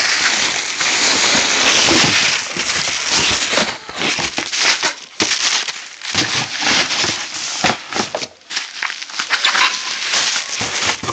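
Loud crinkling and rustling with many small crackles, like crinkly material or packaging being handled close to the microphone.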